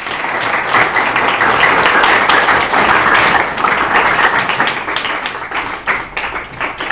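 A class of schoolchildren applauding. The clapping starts suddenly, stays dense for about five seconds, then thins into scattered separate claps near the end.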